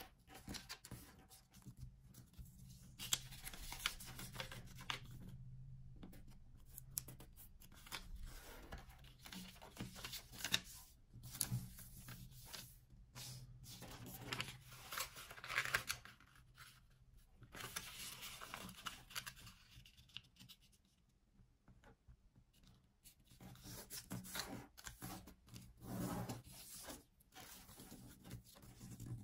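Thin two-colour origami paper rustling and crinkling as hands fold it, with sharp crackles as creases are pressed flat. There is a quieter stretch about two-thirds of the way through.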